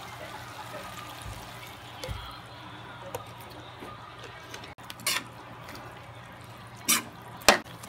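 Soy sauce poured into a wok of frying bologna and cauliflower, under a steady low hiss of cooking. A metal spatula knocks against the wok three times in the second half, the last knock the loudest.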